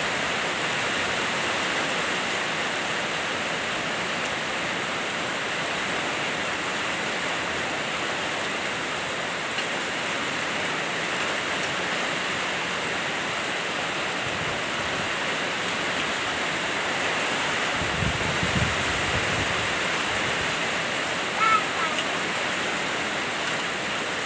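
Heavy rain falling steadily, a continuous hiss of water. A short low rumble comes about three quarters of the way through, and a brief high chirp near the end.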